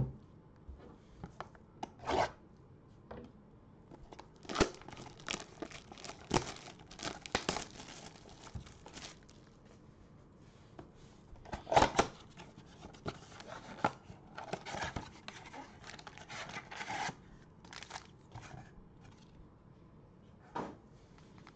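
A cardboard trading-card blaster box being torn open by hand and its foil packs pulled out: irregular rips, crinkles and rustles, with the loudest tearing about halfway through.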